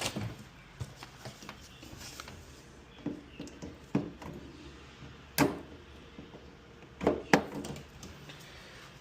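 Scattered knocks and clicks of tools and panels being handled while a front-load washer is put back together: a handful of sharp knocks, the loudest about halfway through and a pair close together near the end.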